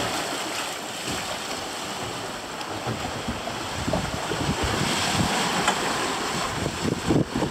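Wind buffeting the microphone over the rush of the sea and the white-water wake behind a sailing boat under way.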